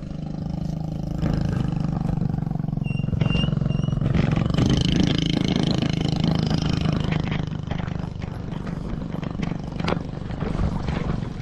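A small engine running steadily with a low hum, swelling a little in the middle, with a few short clicks.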